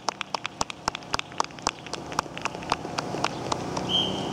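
Scattered applause from an audience: single hand claps at an uneven pace, thinning out toward the end. A short high tone sounds near the end.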